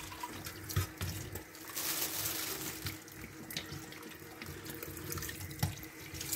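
Kitchen tap running steadily into a stainless steel sink while a fish is gutted and rinsed under the stream, with a few light knocks from handling in the sink.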